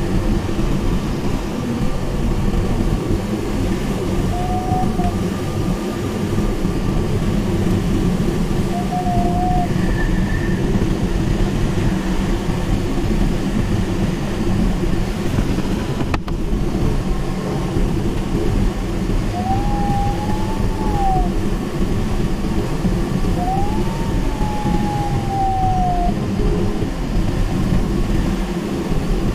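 Steady rush of airflow around the canopy of a Mini Nimbus HS7 glider in flight, with a few short electronic tones from the audio variometer every few seconds. Near the end come two longer tones that rise and then fall in pitch over a second or two.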